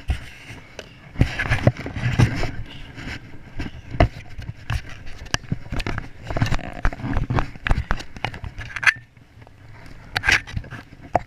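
Handling noise on a small action camera: irregular knocks, scrapes and rustling as it is touched and jostled close to its microphone.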